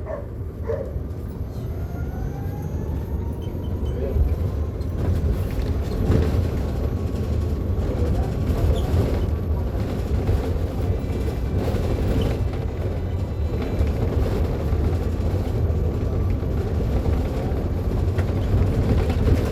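Mercedes-Benz eO500U electric bus running, its electric drive motor giving a whine that rises in pitch over the first few seconds as the bus gathers speed and then holds steady, over a low rumble of road noise.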